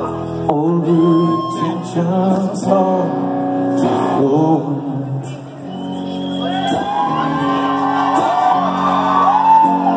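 Rock band playing live in a large hall: a male lead vocal sings a melody over electric guitars, bass and drums.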